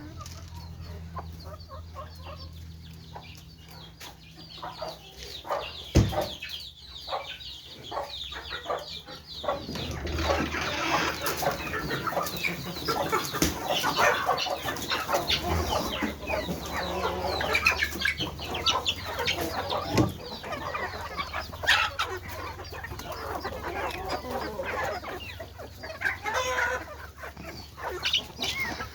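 Domestic chickens clucking and calling, a few at first, then many at once from about ten seconds in as the flock gets busy. Two sharp knocks stand out, one about six seconds in and one about twenty seconds in, over a low steady hum.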